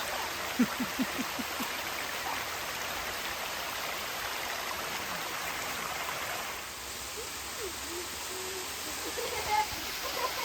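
Steady rush of water from a waterfall and stream, easing a little about two-thirds of the way through. About half a second in comes a quick run of about five short low notes.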